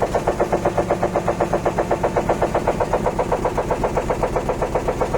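Electrolux LT10B top-loading washing machine in its spin cycle, making a very loud, fast, regular pulsing noise of several beats a second over a steady motor hum: a fault in the spin.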